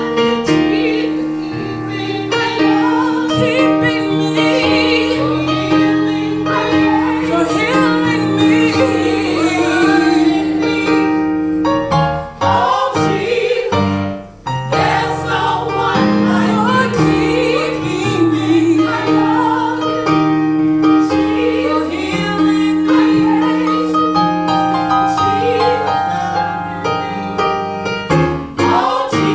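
Gospel singing with female voices and a choir over piano or keyboard accompaniment. Long notes are held, with a short break in the sound about halfway through.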